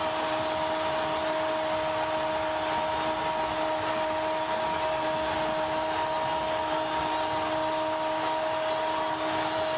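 Steady stadium crowd noise from the match broadcast, with a droning tone held unbroken over it.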